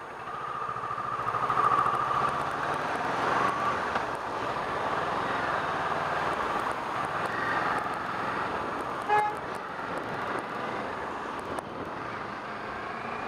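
Kawasaki Ninja 650's parallel-twin engine running under way, with wind and road noise on the rider's microphone; it gets louder a second or two in.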